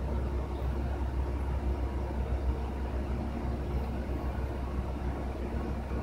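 Steady low machine hum with faint steady tones over it, even throughout with no sudden sounds.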